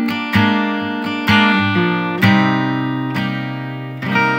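Background music: acoustic guitar strumming chords, about one strum a second, each chord left to ring.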